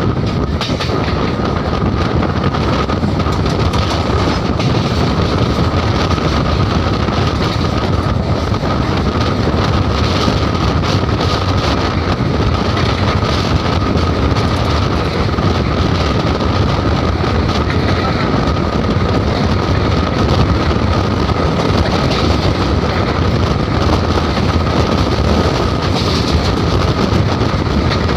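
Steady running noise of a train at about 75 km/h, heard at the open window of a moving local train: wheels on rails and wind, with a steady high-pitched whine throughout.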